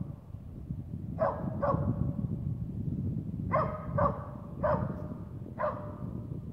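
Swedish white elkhound barking at a bull moose it is holding at bay: six short barks, two quick pairs and then two single barks, over a low rumble of wind on the microphone.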